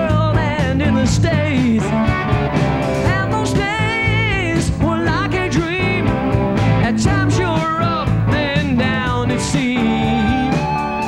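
Live rock band: a lead electric guitar plays bent, wavering notes with heavy vibrato over bass guitar, a second guitar and a steady drum beat with cymbal hits.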